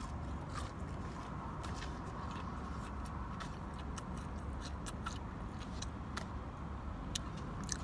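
Close-up chewing of crunchy fried fast food, with many small, sharp crunches scattered throughout, over a steady low rumble.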